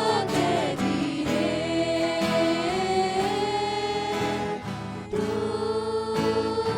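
Voices singing a Christian worship song together with instrumental accompaniment, the melody held in long sustained notes.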